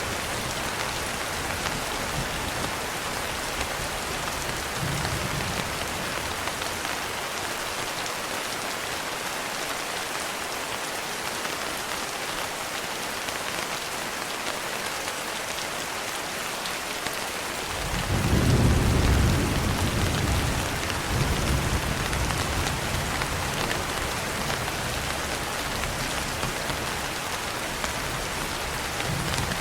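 Steady rain falling with an even hiss. About two-thirds of the way through, a low roll of thunder swells up as the loudest moment and fades back into the rain over a few seconds.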